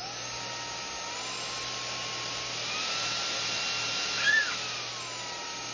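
Cordless stick vacuum's motor running with a high whine. It steps up in pitch twice as the power setting is raised, then drops back down near the end. A short, loud squeak comes a little past four seconds.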